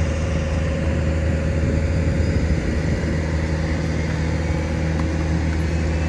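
An engine running steadily, a low drone made of several unchanging hums.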